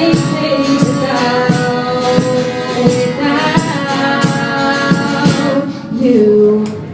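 Live band playing the closing bars of an original pop-rock song: held chords over a steady beat of percussion hits, with a sung note sliding down and holding near the end.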